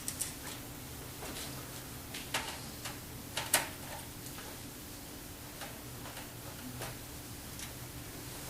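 Scattered faint metallic clicks and ticks as screws are backed out of the steel PC case's expansion-slot locking tab, with a couple of louder clicks in the first few seconds.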